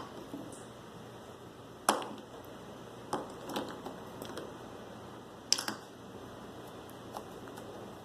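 Slime being squeezed and stretched by hand, giving sharp pops and squishes: a loud pop about two seconds in, a cluster of smaller ones a second later, another loud pop about five and a half seconds in.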